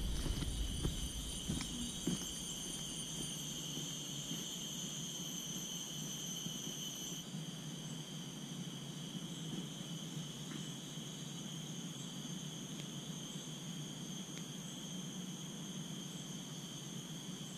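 Steady, high-pitched drone of tropical forest insects, several held tones sounding together; the highest tones shift about seven seconds in.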